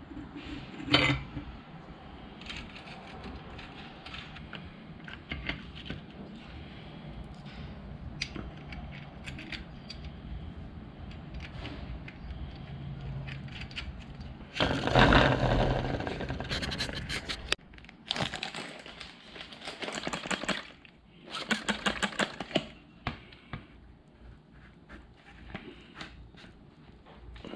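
Bicycle parts, a training wheel among them, being handled and fitted by hand: scrapes, clicks and knocks of metal and plastic. There is a sharp click about a second in, and several louder rattling stretches in the second half.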